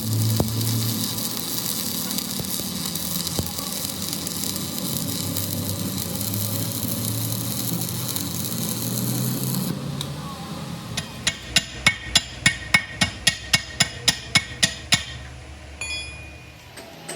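A steady hissing noise for about ten seconds, then rapid hammer blows on metal, about four a second for around four seconds, as the truck's axle and wheel housing are worked on.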